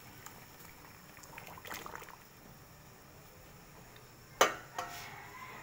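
Soup broth bubbling faintly at a boil in a stainless steel pot. About four seconds in there is a sharp metallic clank against the pot with a brief ring, followed by a lighter knock.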